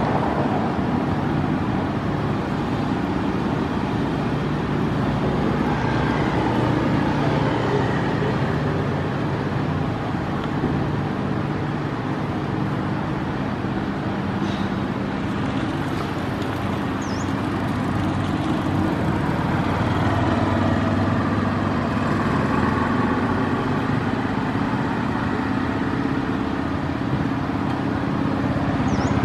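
Steady outdoor background noise, a dense low rumble like road traffic, that holds level throughout.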